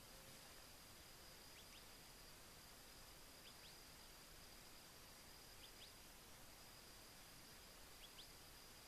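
Near silence: faint outdoor background hiss with a steady thin high whine and a handful of faint short rising chirps scattered through.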